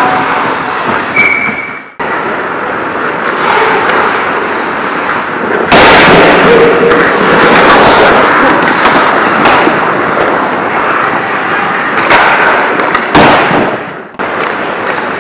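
Ice hockey play close to the goal: skates scraping the ice with sticks and puck clattering, a loud noisy wash full of sharp knocks. The sound breaks off abruptly about two seconds in and jumps louder near six seconds.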